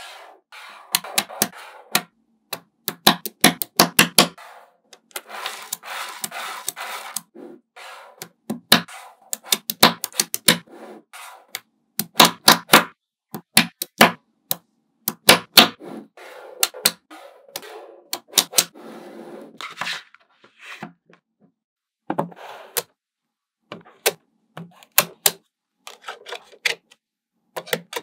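Small magnetic balls clicking as they snap together, in quick runs of sharp clicks with softer rattling in between.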